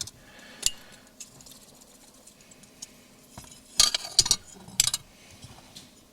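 A few short clinks and rustles of small items and papers being put back into a car's glovebox, the loudest group about four seconds in.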